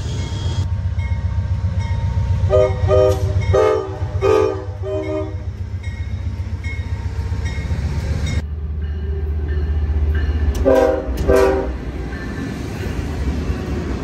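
Diesel locomotive chord horn sounding a salute of about five short blasts, several notes at once, over the steady low rumble of a passing train. Two more short blasts follow near the end.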